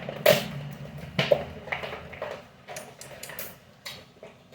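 Handling clatter: sharp clicks, clinks and rustles of small items and packaging being picked up and unpacked, with the loudest knocks in the first second and a half.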